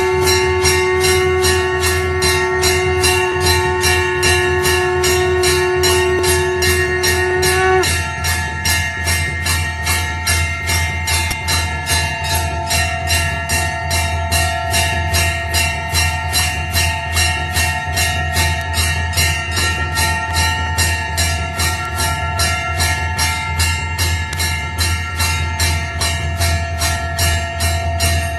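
Temple bells rung fast and without a break during aarti, about three strokes a second, their ringing tones sustained over a constant low drone. A steady held tone sounds along with them and stops about eight seconds in.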